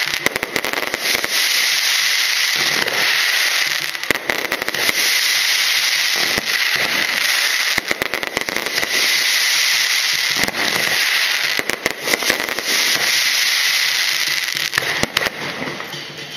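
Fireworks going off: a dense, continuous crackling and popping of bursting shells and crackling stars, which thins out and fades near the end.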